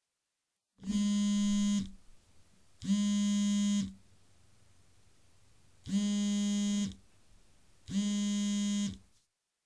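Electronic buzzer tone sounded four times in two pairs, each buzz about a second long at a steady low pitch that sags as it cuts off.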